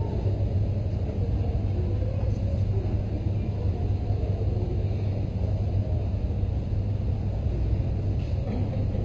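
Steady low rumble of a car engine and road noise, a recorded car sound effect accompanying a mimed drive.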